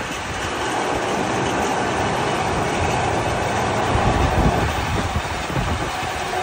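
Steady rumbling clatter of wharf machinery, with wind buffeting the microphone about four seconds in.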